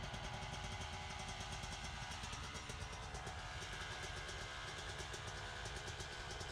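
Two-stroke motocross dirt bike engine idling steadily, leaving a haze of blue exhaust smoke.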